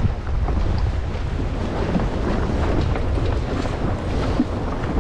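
Wind buffeting the microphone aboard a sailboat under way: a steady low rumble with a hiss above it.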